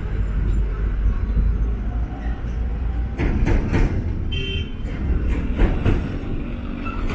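Busy city-street ambience: a steady low rumble of traffic with vehicles passing, and a short horn toot about four seconds in.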